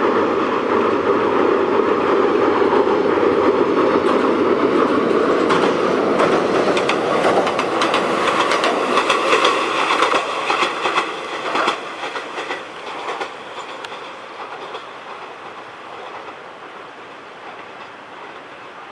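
Konan Railway 7000-series electric train (ex-Tokyu 7000) passing, its wheels clattering over the rail joints in quick runs of clicks. It then fades away over the last several seconds as it moves off.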